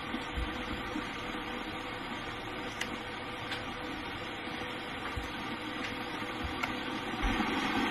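A steady kitchen hum and hiss, with a few faint crinkles and soft knocks as a plastic packet of hot pot soup base is squeezed out over a pot.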